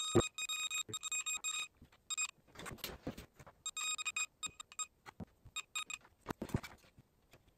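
A digital multimeter's continuity beeper sounds in a stuttering high beep as its probes are held against the commutator of a failed cordless circular saw motor's armature, checking the windings for continuity. The beeping runs for about the first second and a half and again for about a second midway, with light clicks and knocks from handling the armature in between.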